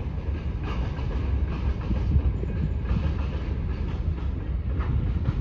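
Freight train wagons rolling along the track, a steady low rumble with wheels clicking over the rail joints every second or so.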